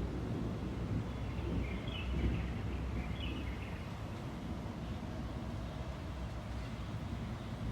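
Outdoor rainy-day ambience: a steady low rumble with a faint wash of noise, and a few short bird chirps about two and three seconds in.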